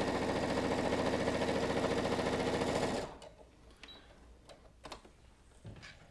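Brother ST150HDH heavy-duty sewing machine stitching at a steady speed through two layers of 4-ounce leather, sewing through without trouble. It stops abruptly about three seconds in. A few faint clicks follow as the leather is handled.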